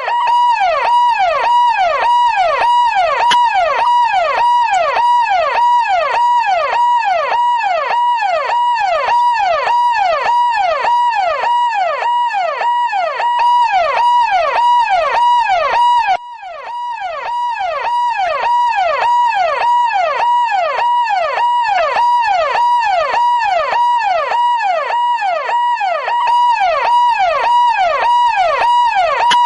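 Police car siren wailing in a fast rising-and-falling sweep, about three cycles every two seconds. It briefly drops out and comes back about sixteen seconds in.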